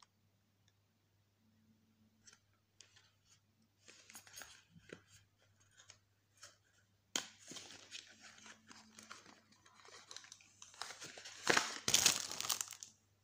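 Plastic cosmetics packaging being handled: crinkling and tearing rustles with scattered clicks, sparse at first, busier from about halfway and loudest near the end.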